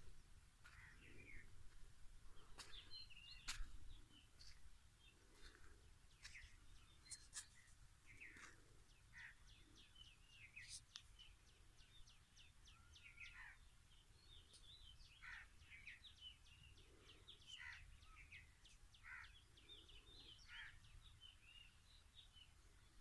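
Faint outdoor birdsong: many small birds chirping and calling on and off, over a low rumble. A sharp click about three and a half seconds in is the loudest sound.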